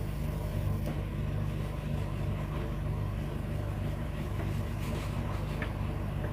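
Steady electrical buzz-hum from a powered PA monitor speaker, a low drone at an unchanging level. It is unwanted noise on the speaker's signal line, which the owner suspects comes from a faulty cable.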